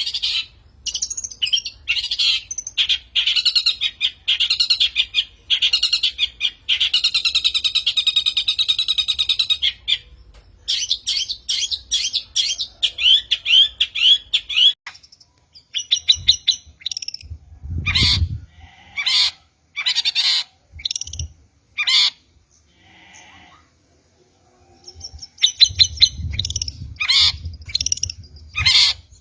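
Long-tailed shrike (cendet) calling in rapid, harsh chattering runs with short pauses, the agitated calls used as a lure to provoke other shrikes. A low rumble rises under the calls about two-thirds of the way in and again near the end.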